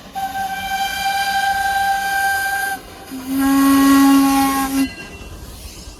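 Baldwin narrow-gauge steam locomotive whistle blowing two blasts: a long, higher-pitched one of nearly three seconds, then after a short break a lower, louder one of under two seconds, with steam hissing as it fades.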